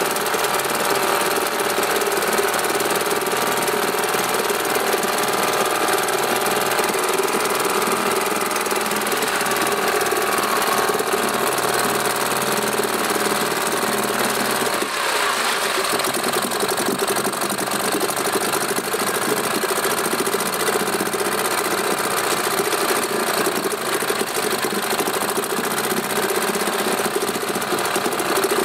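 British Seagull single-cylinder two-stroke outboard running in a tank of water on its first start after 40 years unused. Its speed wavers slightly and dips briefly about halfway through.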